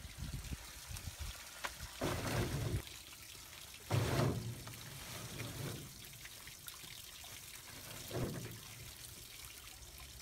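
Green-husked walnuts poured from a sack into the drum of a walnut-peeling machine, coming in a few louder rushes, over a steady trickle of water.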